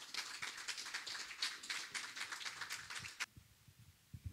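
Audience applauding, a dense patter of many hands clapping that cuts off abruptly about three seconds in.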